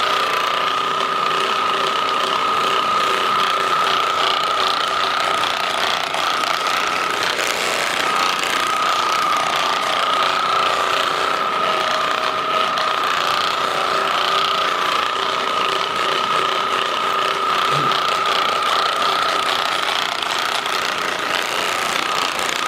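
Handheld percussion massage gun running steadily: a constant motor whine over rapid mechanical rattling.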